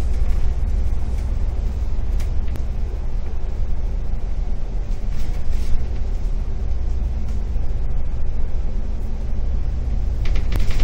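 Double-decker bus's diesel engine idling steadily, a deep low rumble, with a few short faint hisses from the bus or passing traffic.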